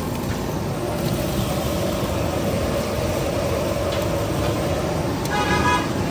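Steady street traffic noise, with a short, high steady tone a little after five seconds in.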